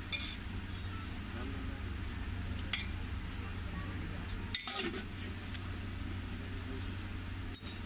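A metal spoon clinks against a steel pot and counter as sauce is scooped and spread, in a few sharp clinks with the loudest cluster about four and a half seconds in. A steady low hum runs underneath.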